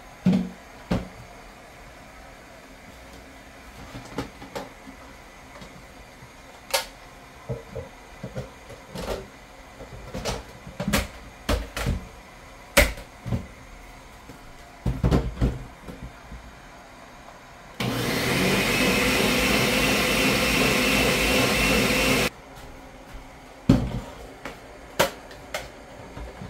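Electric countertop blender running steadily for about four and a half seconds as it blends coconut, starting and stopping abruptly. Before and after it come scattered knocks and clatters of kitchen items being handled.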